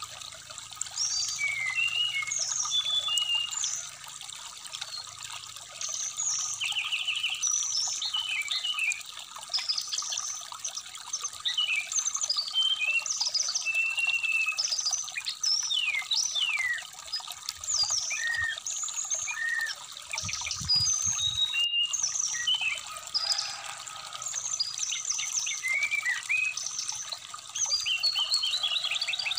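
Brown-chested jungle flycatcher singing a rapid, continuous string of short chirps and whistles over the steady trickle of a shallow stream.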